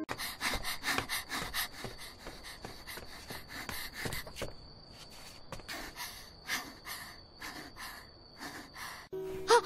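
A young woman's voice making a quick string of short gasps, pants and breathy grunts, each cut off abruptly and spliced straight onto the next. There are about three or four a second at first, thinning out later, with a louder pitched vocal sound near the end.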